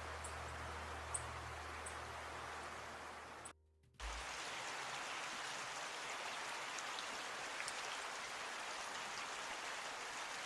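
Steady hiss of water, with a low tone fading out over the first few seconds and a brief dropout to silence about three and a half seconds in.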